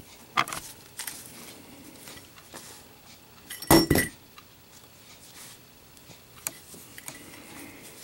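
Lit Zippo armor-case lighter dropped onto a cloth-covered table in a drop test: one sharp metallic clack with a brief ring a little before the middle, and a few faint clicks of handling around it.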